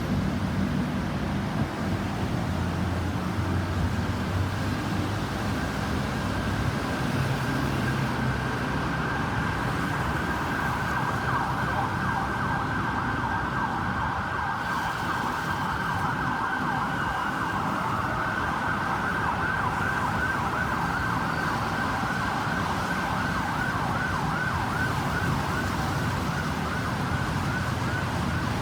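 Ambulance siren sounding a fast yelp, sweeping up and down several times a second, over a low traffic and engine rumble; the siren grows clearer several seconds in.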